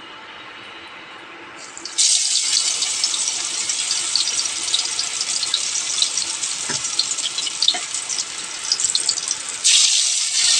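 Spice-batter-coated brinjal slices sizzling as they deep-fry in hot oil in a kadhai. A loud crackling hiss starts suddenly about two seconds in as the first slice goes into the oil, and it jumps louder again near the end as a second slice is added.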